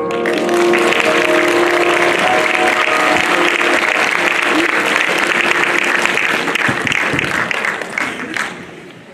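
Audience applauding, with the instrumental background music fading out beneath it during the first few seconds; the applause dies away near the end.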